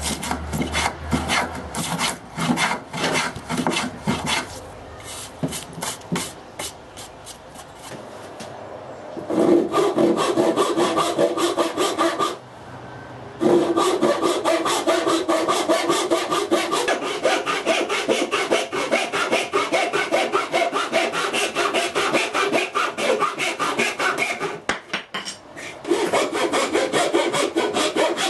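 Hand saw cutting pallet wood. It starts with short, uneven strokes. About nine seconds in it becomes a run of fast, steady back-and-forth strokes, broken by two brief pauses.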